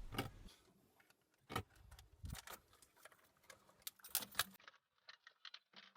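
Faint, irregular clicking and light rattling, several sharp clicks spread unevenly, sounding duller after a cut about two-thirds of the way through.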